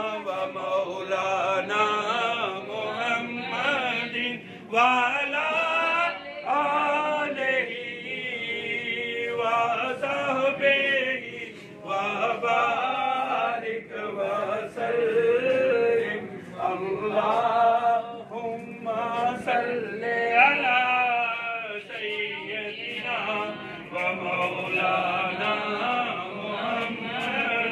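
Several men's voices chanting together in a devotional Islamic chant, held and sustained without break.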